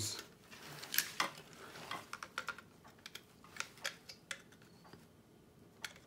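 Irregular light clicks and taps of a flathead screwdriver and hands on the metal and plastic of a princess telephone's rotary dial as its side screws are worked.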